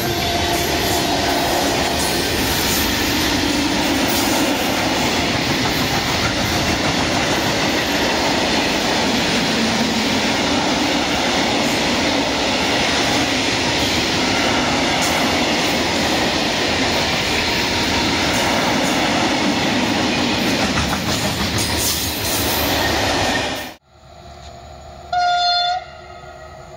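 Long freight train of open-top wagons passing close at speed: a loud steady rumble and rattle of wheels and wagons on the rails. It cuts off abruptly near the end, and a locomotive horn then sounds one short blast.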